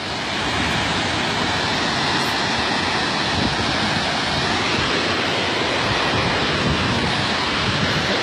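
Steady, even rushing noise outdoors, with no clear events in it.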